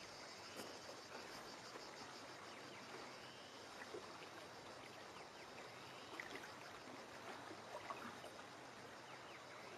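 Faint riverside wildlife ambience: a steady, rapidly pulsing high-pitched drone with a few faint scattered chirps over a soft background hiss.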